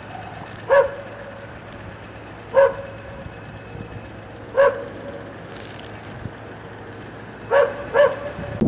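A dog barking: five short, sharp barks a couple of seconds apart, the last two in quick succession near the end.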